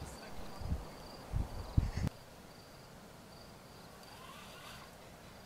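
Insects chirping faintly in a steady, pulsing high-pitched rhythm. Several low thuds sound in the first two seconds and cut off suddenly.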